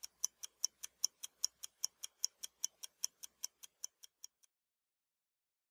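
Even, rapid ticking, about five ticks a second, fading away and stopping about four and a half seconds in.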